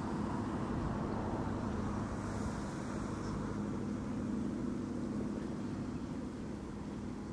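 Outboard motorboat engine running steadily at cruising speed as the boat passes, with a hum of water and hull noise; the sound eases off slightly near the end.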